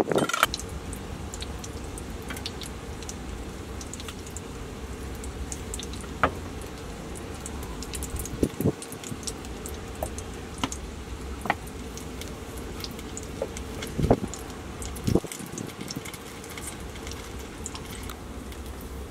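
Burger patties frying in a pan, crackling with many small scattered pops, with a few louder knocks of kitchen utensils over a steady low hum.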